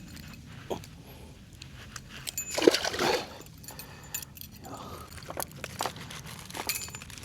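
Water splashing at the pond's surface, loudest for about a second near the middle, with small clicks and ticks around it.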